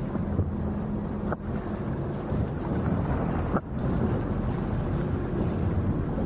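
Sea-Doo RXT-X 300 jet ski's supercharged three-cylinder engine running steadily at low speed, with water wash and wind on the microphone. The sound drops out briefly twice.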